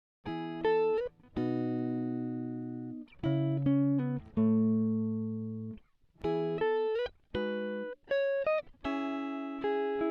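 Background music: guitar chords and short runs of notes, each chord struck and left to ring out.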